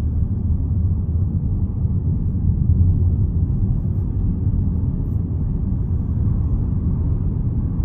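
Steady low rumble of a car driving along, heard from inside the cabin: engine and tyre noise on the road.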